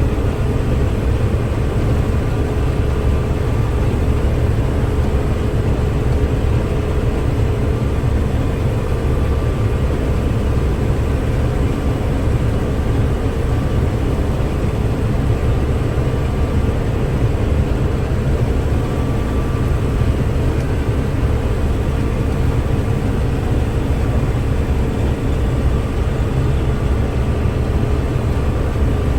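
Combine harvester running steadily under load while cutting ripe spring oats: a constant low engine and threshing drone.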